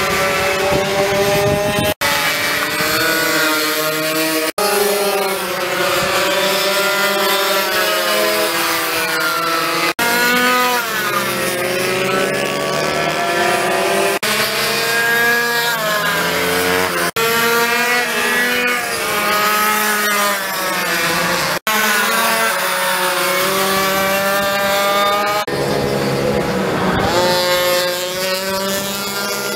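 Small two-stroke racing minibike engines revving high as the bikes race past, their pitch rising and falling with throttle and as they pass. The sound breaks off abruptly several times.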